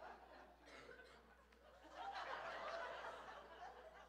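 Faint laughter from a group of people, swelling about two seconds in and easing off near the end.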